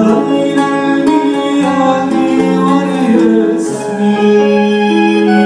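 Live band music, with a melody of long held notes over the accompaniment.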